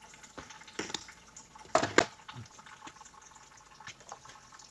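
Scattered light clicks and knocks of metal transmission parts being handled on a workbench, with a louder clatter a little under two seconds in.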